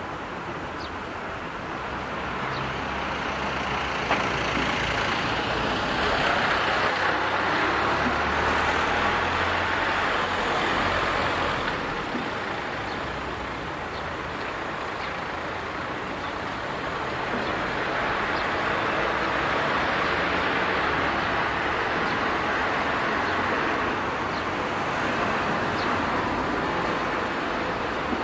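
Road traffic noise: motor vehicle engines running with a low hum, the noise swelling louder twice.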